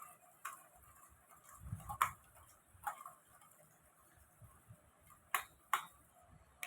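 A spoon clicking and tapping against a bowl while a thick slime mixture is stirred, about six separate clicks spread irregularly through the stirring.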